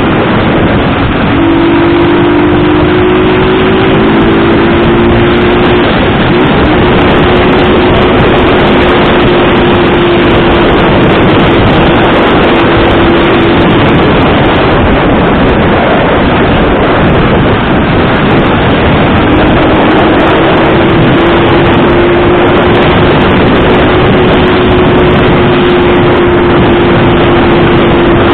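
Motorcycle riding at steady speed, its engine holding an even note under loud, continuous wind rush on the microphone; the engine note fades out for a few seconds in the middle and then returns.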